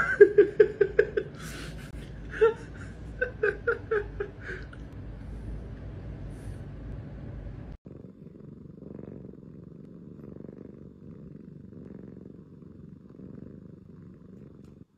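A quick run of short, loud, high-pitched sounds in the first few seconds; then, after a sudden cut about eight seconds in, a cat purring steadily.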